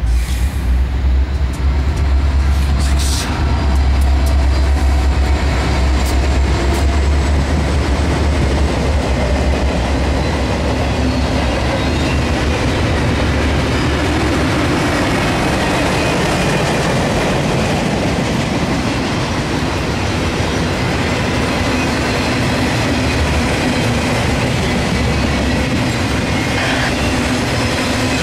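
Norfolk Southern intermodal freight train led by an EMD SD60M diesel locomotive with a 16-cylinder 710 engine: the locomotive's heavy low engine rumble as it comes up and passes close by, easing into the steady rumble and rattle of trailer and container cars rolling past on the rails.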